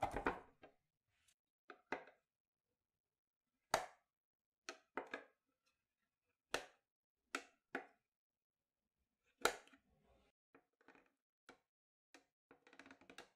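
A plastic lid pulled off a food container at the start. Then a knife cuts down through set milk gelatin jelly in a glass dish, about a dozen short sharp taps spaced a second or so apart as the blade meets the dish, coming quicker near the end.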